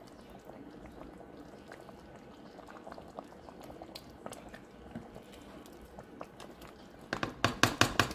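Pot of chicken stew bubbling softly at a simmer while a spoon is moved through it. Near the end comes a quick run of sharp, louder knocks.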